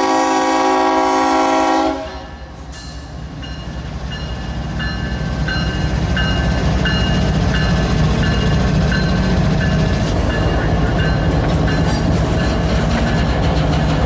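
Union Pacific GE C45AC locomotive's chord horn sounding, cutting off about two seconds in. Then the steady rumble of double-stack intermodal cars rolling past, growing louder, with a regular clicking of wheels over the rail about twice a second.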